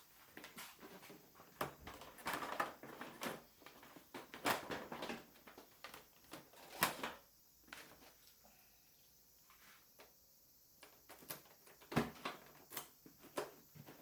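Faint, irregular clicks, taps and rustling, with a few sharper ticks, the loudest about seven seconds in and again about twelve seconds in.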